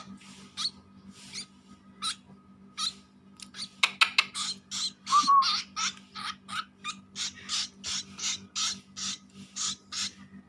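White-breasted woodswallow (kekep babi) chick giving harsh, raspy begging calls over and over, about two a second and quickening in the second half, as it begs to be fed. A few sharp clicks come about four seconds in.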